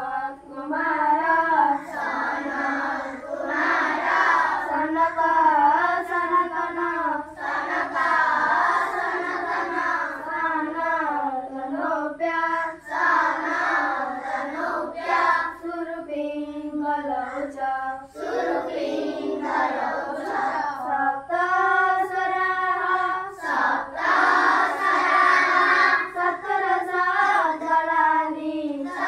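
A group of schoolchildren singing a morning prayer together in unison, in long sung phrases with brief pauses between lines.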